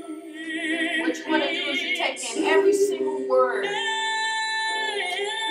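Recorded worship song with a woman singing. Her voice wavers with a strong vibrato in the first couple of seconds, then slides up into a note held for about a second past the middle.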